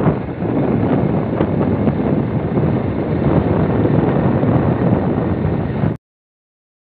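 Wind rushing over the microphone together with the steady noise of a moving road vehicle, filmed from inside it. It cuts off suddenly near the end.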